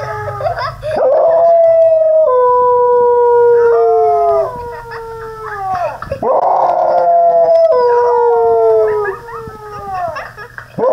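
A dog howling: long drawn-out howls, each a few seconds long, sliding slowly down in pitch, with short breaks between them and a new howl starting at the very end.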